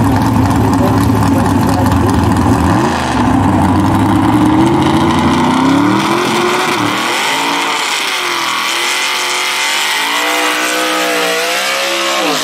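Gasser drag car's engine idling, then revving up and down in repeated waves as it does a burnout, the pitch climbing higher before falling away near the end.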